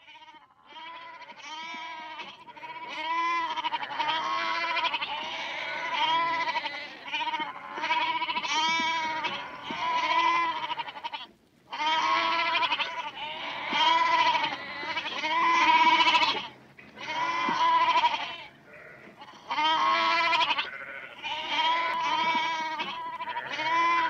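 A large herd of goats bleating, many calls overlapping almost without pause. The calls start faint and get louder over the first few seconds as the herd comes close, with a short lull about halfway through.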